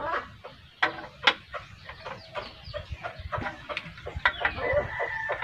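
Sharp clicks and taps of a metal silencer being handled and fitted onto a brass airgun barrel. Chickens cluck in the background.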